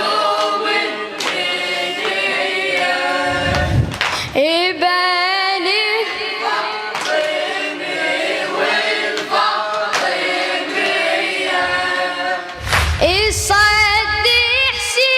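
Layered, choir-like voices singing a long melodic refrain of a Shia Muharram latmiya, unaccompanied by instruments. A deep low thudding comes in briefly about four seconds in and again near the end.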